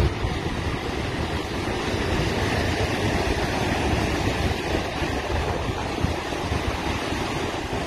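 Storm surf breaking and rushing in during a hurricane, with strong wind rumbling over the microphone, a continuous loud roar.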